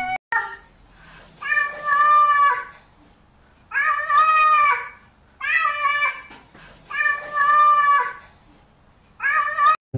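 A grey-and-white cat meowing, five drawn-out meows of about a second each with short pauses between, the last one short.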